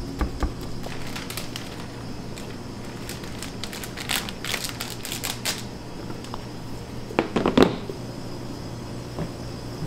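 Bakery work noises: short bursts of clicking and crackling, and a couple of thumps about seven seconds in, over a steady low hum.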